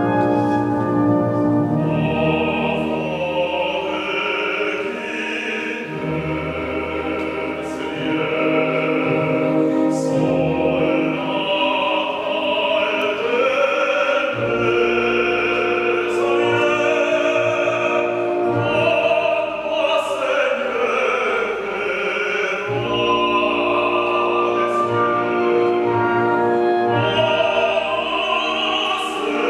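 A classically trained opera singer singing with a wide vibrato over an orchestra, the voice entering about two seconds in.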